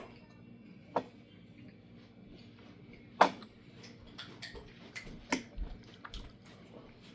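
Irregular light taps and clicks, with a sharper knock about three seconds in and a quick run of small taps near the end.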